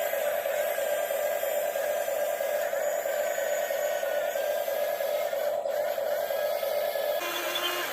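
Small electric motors and gearboxes of toy remote-control construction machines running with a steady whir, their pitch shifting slightly now and then, and changing character near the end.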